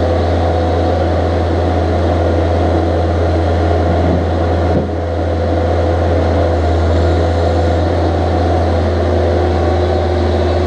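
Engine of a Vermeer mini track skid steer running steadily, a loud low drone, with a brief dip about five seconds in.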